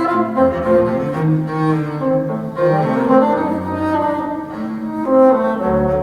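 Recorded music played back through an Audience compact hi-fi loudspeaker system: a melody of held notes over deep, sustained bass notes.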